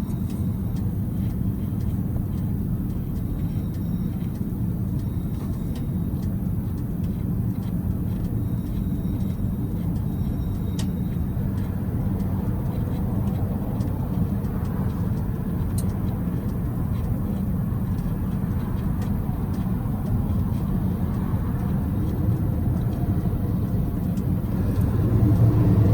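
A steady low engine rumble from a vehicle running nearby, with a few faint tool ticks over it.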